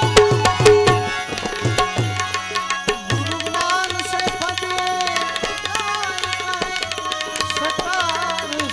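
Live Indian devotional folk music: a harmonium melody over busy tabla playing, with the tabla's deep bass strokes strong in the first three seconds.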